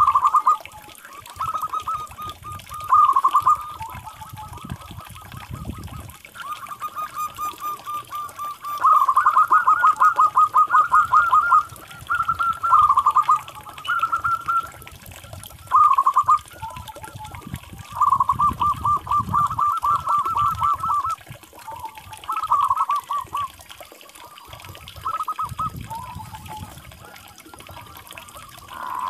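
Zebra dove (perkutut) cooing: repeated bouts of its rapid, staccato trilled song, some short and some running about three seconds, with brief pauses between them and a low rumble under some bouts.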